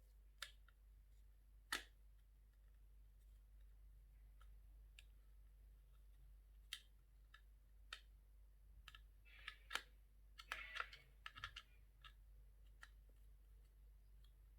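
Scissor blade tip turning a loosened notched H-type screw: sparse small metal clicks and scrapes, with a quick cluster of them about ten to eleven seconds in, over a faint steady hum.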